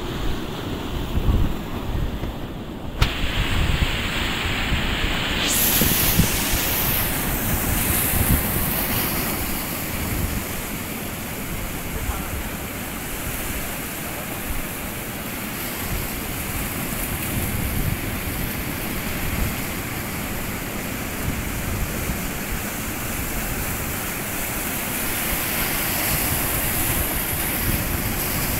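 Sea surf breaking and washing over boulders in a steady rush of water, with gusts of wind buffeting the microphone.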